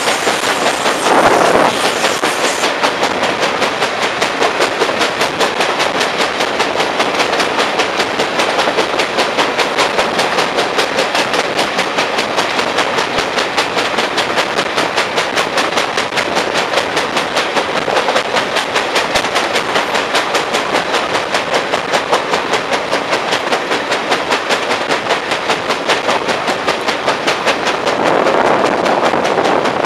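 Railway carriage running along the track, a wheel with a flat spot knocking on the rail in a fast, even beat over the steady rumble of the wheels. Two short swells of louder rushing noise come about a second in and near the end.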